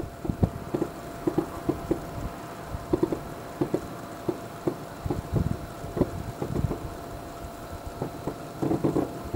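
Distant aerial fireworks: a steady run of muffled low booms and pops at irregular intervals, with a louder cluster near the end.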